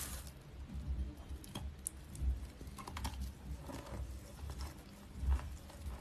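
Chewing a mouthful of dry white chalk-like mineral: irregular crunches and crackles over dull low jaw thumps, with louder crunches about two seconds in and again near the end.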